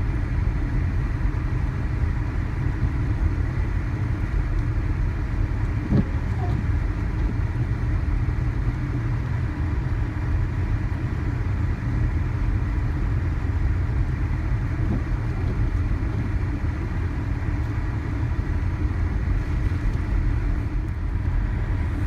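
Steady low rumble of a car driving through snow at a constant pace, road and engine noise heard from inside the cabin.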